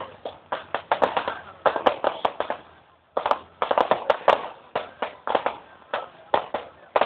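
Fireworks going off in a rapid series of sharp bangs and crackles, several a second. There is a brief gap about three seconds in, then the bangs resume just as densely.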